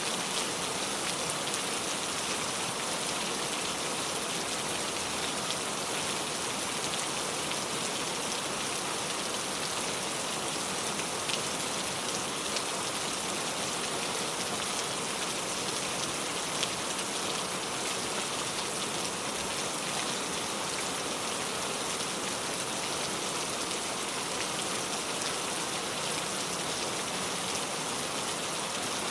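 Steady rain falling on surfaces, an even hiss with scattered individual drop ticks; no thunder in this stretch.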